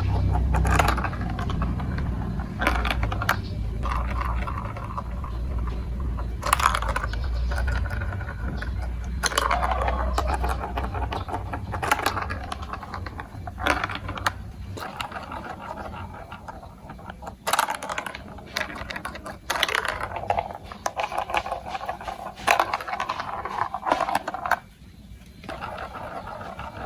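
Marbles rolling and clattering through a marble run of building blocks, with many sharp clicks and rattles. A low rolling rumble fades out about halfway through.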